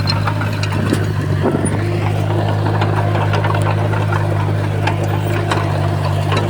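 Heavy diesel engine of earthmoving equipment running steadily, with scattered metallic clanks and ticks over it.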